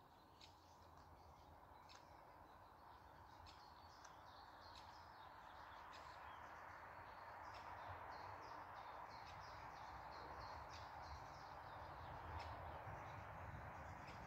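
Faint birds chirping and calling, many short quick notes, over a soft steady background hiss that slowly grows louder.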